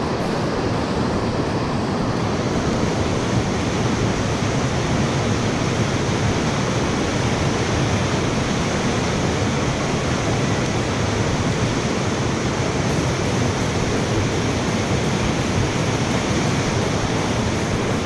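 Mountain stream water rushing steadily and loudly, an even noise with no change throughout.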